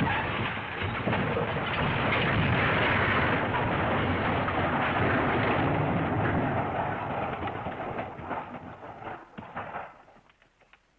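Smash sound effect: a dense, noisy crashing rumble that holds steady, then thins into scattered crackles and fades out over the last few seconds.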